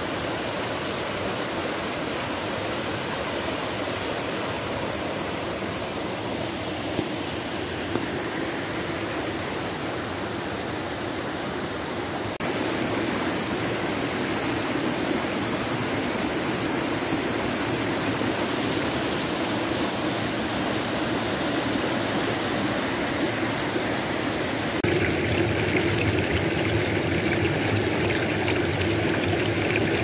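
Small woodland waterfall and stream rushing steadily over rocks. The rush steps up a little louder twice, about twelve seconds in and again about five seconds before the end.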